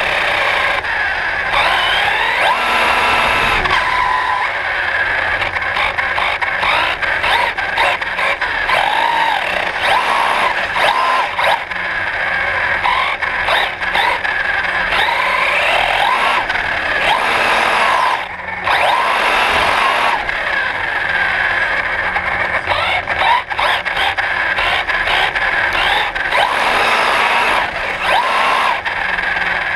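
A 1/8-scale brushless electric RC car's motor whining, its pitch sweeping up and down again and again as the throttle is opened and eased, over a steady rushing noise of the running car. Heard close up from a camera mounted on the car, with a brief drop in sound about two-thirds of the way through.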